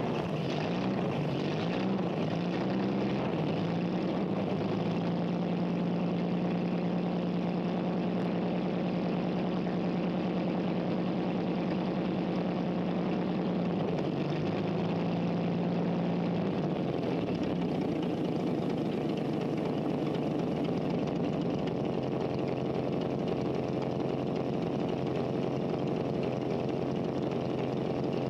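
The Sky Car helicopter's engine running, driving its reciprocating flat-disc propeller through a chain and transmission. Its speed wavers and climbs over the first few seconds, then holds steady. It dips briefly about halfway, and a little later settles into a different steady note.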